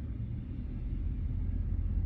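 A steady low rumble with a faint hiss above it, growing slightly louder near the end.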